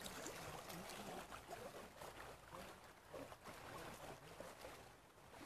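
Faint shallow-river water ambience: water lapping and trickling, with scattered small splashes and a few faint distant voices.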